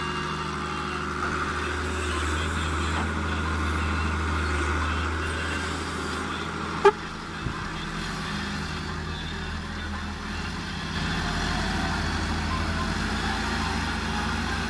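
Diesel engines of a wheeled excavator and a Massey Ferguson tractor running steadily, the low drone shifting pitch about halfway through. One brief sharp knock about seven seconds in is the loudest moment, with a smaller thump just after it.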